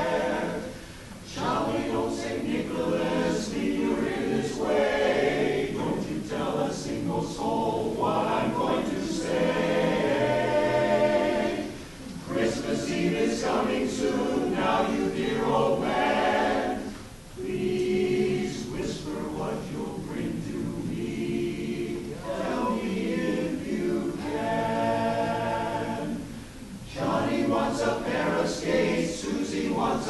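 Men's barbershop chorus singing a cappella in close harmony, full male voices with no instruments. The phrases break off briefly a few times, with short gaps between them.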